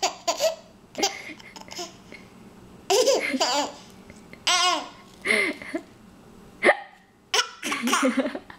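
A ten-month-old baby hiccupping and laughing in short separate bursts, one of them a high wavering squeal about halfway through.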